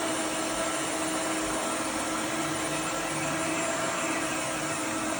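Roborock F25 Ultra cordless wet-dry floor washer running steadily: an even rush of suction with a steady motor whine.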